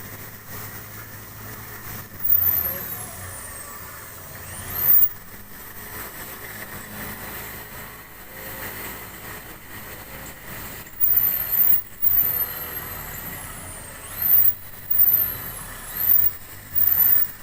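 A power drill driving long self-drilling tek screws into a steel purlin, run in short bursts. Each burst has a high motor whine that climbs as the drill spins up and falls as it stops. There are two bursts early on, then a quick run of about six in the last third.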